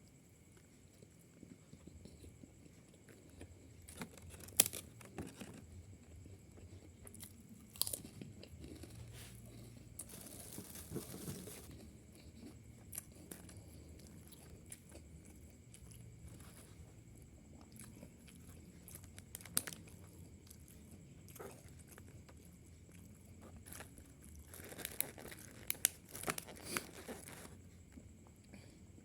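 A person chewing and biting food close to the microphone, with scattered crunches and clicks and a longer crackly run near the end. A faint steady high-pitched tone sits underneath.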